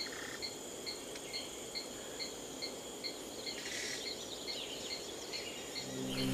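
Insects calling, likely crickets: a high chirp repeated evenly about twice a second over a steady high-pitched trill, with one brief brighter call near the middle. Low sustained music notes come in near the end.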